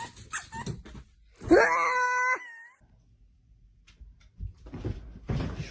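Pet dog whining in short high squeaks, then giving one loud, drawn-out whining howl about a second and a half in that falls off at its end, as it tries to wake its owner. Softer rustling follows near the end.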